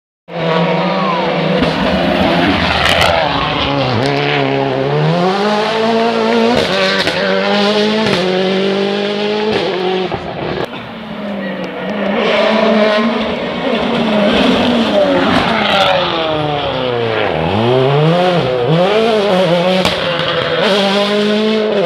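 Rally car engine driven hard, its pitch climbing through the gears and dropping sharply again and again on gear changes and downshifts.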